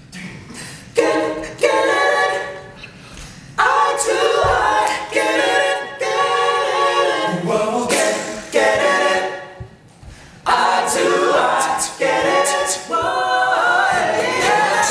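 Male a cappella group singing in close harmony, unaccompanied, in sung phrases broken by short pauses.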